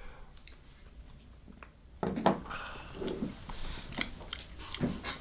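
Mouth and throat noises of someone tasting a shot of liquor: a few short swallowing and lip-smacking sounds, starting about two seconds in after a quiet stretch.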